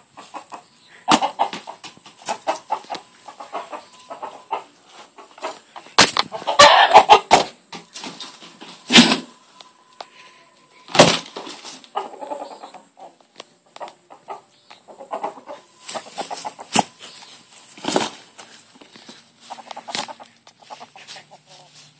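A rooster clucking and flapping its wings as it attacks a soccer ball, with many sharp knocks and thumps from the ball being struck and bouncing. The loudest flurry comes about six to seven seconds in.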